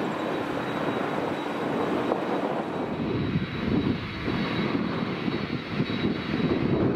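Jet airliner's engines at high thrust, a steady noisy rush, with a deeper, uneven rumble that grows about three seconds in.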